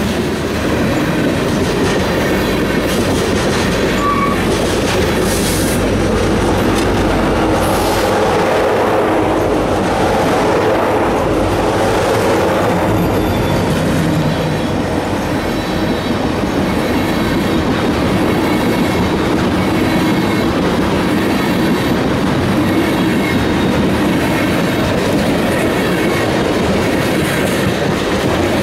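Freight train of covered hopper cars rolling past close by: a steady rumble and clatter of steel wheels on the rails.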